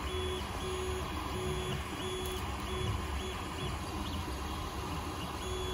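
Ender 3 Pro 3D printer printing: its stepper motors whine in short, repeated tones as the print head moves back and forth laying down filament, over a steady hum from its fans.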